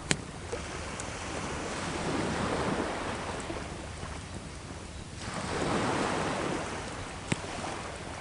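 Sea waves washing in on the shore, two swelling surges a few seconds apart, with sharp pops from a crackling wood fire, once just after the start and again near the end.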